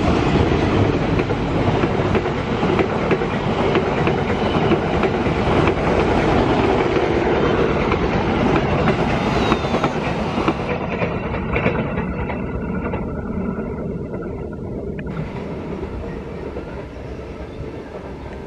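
Passenger train carriages rolling past, their wheels rumbling and clattering over the rails. Loud at first, the sound thins and fades from about eleven seconds in as the train moves away.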